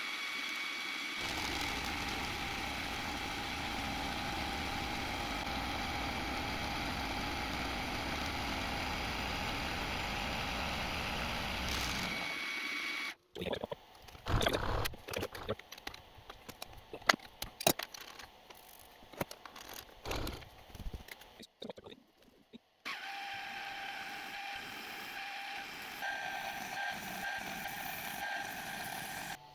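Metal-cutting machine tool, a milling machine taking a steel offcut down by 2 mm, running steadily with a constant whine for about 13 seconds before stopping abruptly. Then about ten seconds of irregular clicks and sharp knocks of metal parts being handled, then a machine running steadily again.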